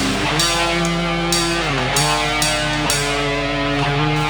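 Hardcore band playing live: heavily distorted electric guitars holding chords that slide down and back up in pitch a few times, over drums with repeated cymbal crashes.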